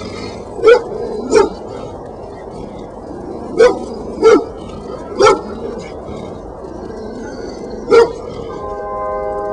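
A dog barking: six short, loud barks at uneven intervals. A steady tone of several pitches comes in near the end.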